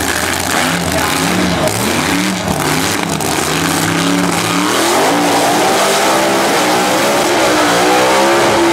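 Two top alcohol drag racing cars, a funny car and a dragster, with their alcohol-fuelled V8 engines. They rev in short blips at the start line, then go to full throttle about five seconds in, the engine note climbing steadily as they launch down the strip.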